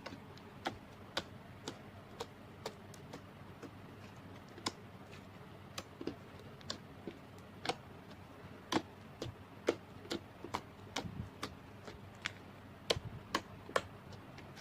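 Slime being pressed and worked by hand, giving irregular sharp clicking pops, roughly one to three a second, louder in the second half.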